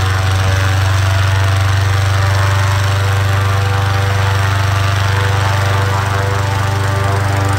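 A loud engine running steadily at an unchanging speed, a deep drone with a buzzy edge.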